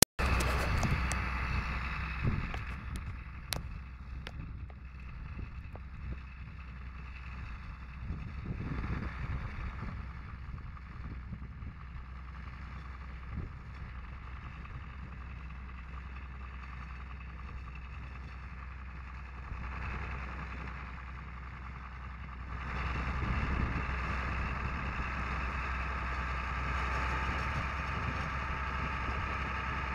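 A John Deere tractor's diesel engine running steadily as it pulls a round baler along the hay rows. The drone steps up in loudness about three-quarters of the way through as the tractor comes closer. A few sharp clicks sound in the first few seconds.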